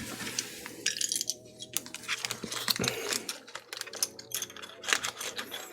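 Loose plastic keycaps clicking and clattering against each other in irregular little taps as they are handled and pushed into a small bag.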